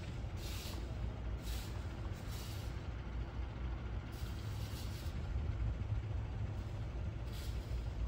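Outdoor ambience: a steady low rumble with soft hissing swishes that come about once a second, fewer in the middle.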